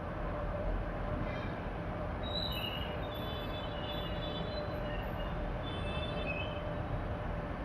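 Hot air rework station blowing steadily with a hum, heating flux to reflow the solder under a phone IC. Faint high whistles come and go in the middle.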